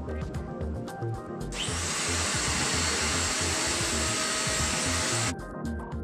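Deerma DX115C corded stick vacuum cleaner's motor starts with a quick rising whine about a second and a half in. It runs as a loud, steady hiss for about four seconds and cuts off suddenly near the end. Background music with a steady beat plays throughout.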